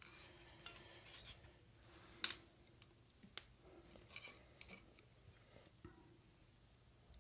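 Faint clicks and light rubbing from hands working silk thread onto a bamboo rod guide with a wooden stick, with one sharp tick about two seconds in.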